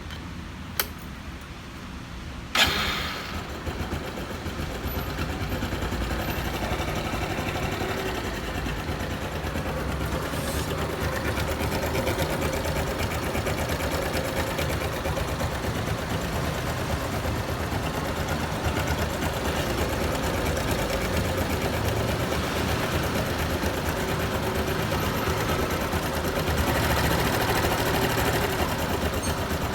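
Honda Super Cub 110 (JA44) single-cylinder engine starting about two and a half seconds in, then idling steadily with a fast, even mechanical ticking, the kind of engine noise the owner sets out to cure. It runs a little louder near the end.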